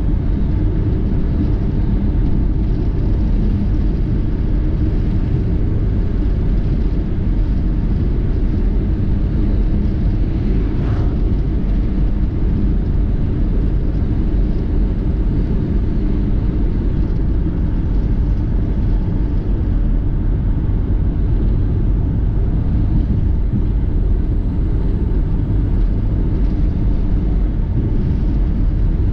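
Steady low rumble of a car driving at speed, road and engine noise heard from inside the cabin.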